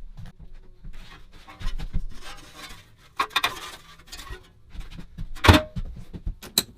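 Metal tools and tool box parts being handled: a run of clinks, scrapes and rubbing, with one loud knock about five and a half seconds in.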